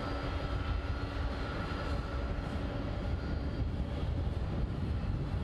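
A Boeing 747-400's four jet engines at taxi power: a steady low rumble, with a faint whine that fades about two seconds in.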